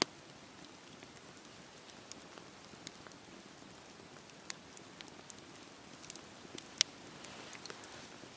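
Wood campfire burning: a steady soft hiss with scattered sharp crackles and pops, the loudest pops about four and a half and nearly seven seconds in.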